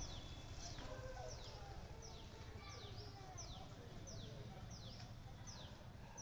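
A bird calling over and over: short, high notes that fall in pitch, repeated steadily a little under twice a second.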